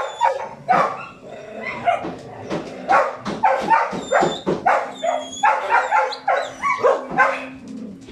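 A group of rescued shelter dogs barking and yipping, with short, sharp barks following one another rapidly throughout and some overlapping.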